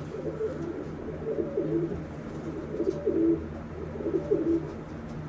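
Racing pigeons cooing: about three rolling, throaty coo phrases, over a steady low hum.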